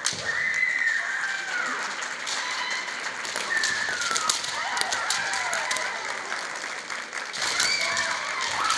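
Kendo kiai from two female high-school fencers: long, high-pitched shouts whose pitch arcs up and down, coming at the start, again in the middle and near the end. Sharp clacks of bamboo shinai are heard among them.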